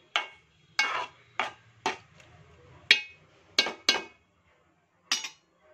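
Metal ladle stirring thick mutton keema curry and knocking against the side of a metal cooking pot: about eight sharp clinks, spaced irregularly.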